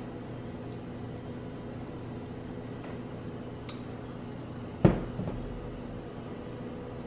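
Salsa verde bubbling in a pan of browned pork ribs over a steady low hum. A sharp knock about five seconds in, followed by two lighter knocks.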